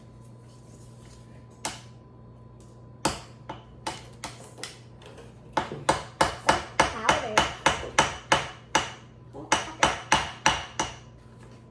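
Wooden mallet striking a metal chisel to chip at a gemstone dig block. First a few single taps, then quick runs of blows at about three a second, each with a short ring.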